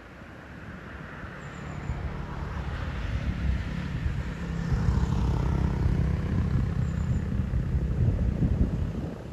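A car approaching and passing close by: engine rumble and tyre noise build over several seconds, stay loud, and ease off near the end.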